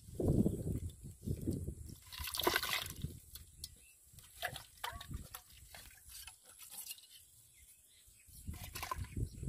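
Muddy water splashing and sloshing as a metal bowl scoops water and catfish out of a small mud pit. Several splashes in the first three seconds, then mostly small drips and clicks, and splashing starts again near the end.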